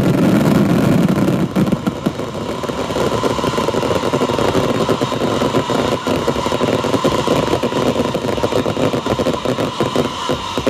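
Fireworks display: a barrage of rockets firing in quick succession, with a heavy rumble for the first second and a half, then a dense run of rapid crackling pops.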